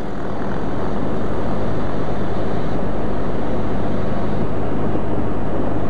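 Cessna 152's four-cylinder piston engine and propeller running at steady power. It grows louder over the first second or so, then holds steady.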